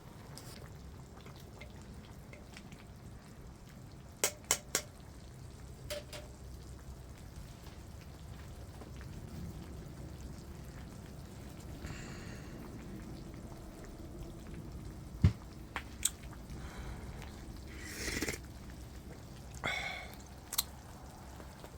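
A pot of hot pot simmering: a steady low bubbling, with a few sharp clinks and knocks now and then.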